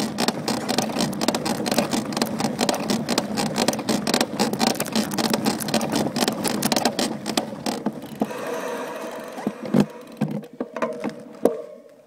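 Trek Top Fuel 9.9 SSL full-suspension mountain bike being ridden over rough dirt: a dense run of clicks, creaks and rattles from the frame and drivetrain, the creak the rider is trying to track down. It thins out and gets quieter after about eight seconds.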